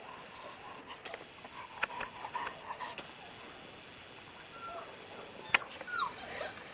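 Bernese mountain dog puppies giving faint, short high squeaks and whimpers, including a falling whimper about six seconds in. A single sharp click comes just before it.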